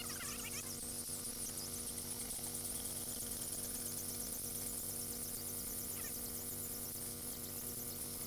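Battery-powered ice auger drilling a hole through lake ice at a distance: a faint high whir over a steady electrical hum.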